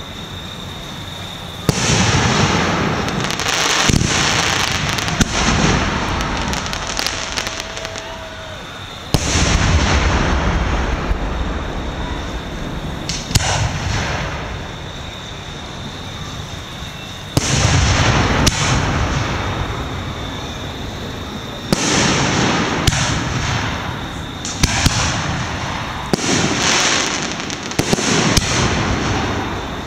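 Aerial fireworks shells bursting in a series of volleys, sharp bangs each followed by a few seconds of noise that dies away.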